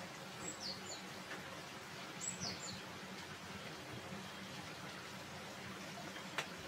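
A small bird chirps twice outside, about two seconds apart; each call is a quick cluster of high, falling notes. A faint steady hum runs underneath, and a single sharp click sounds near the end.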